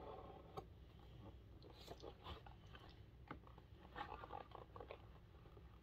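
Faint crinkling and light tapping of a packaged bead kit box being handled and turned over while its taped opening is searched for.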